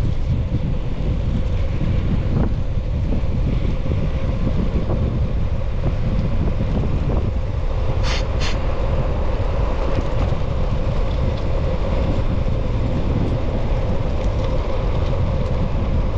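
Wind buffeting the microphone of a rider moving along a road, a steady low rumble with a faint even hum under it. Two short high chirps come close together about halfway through.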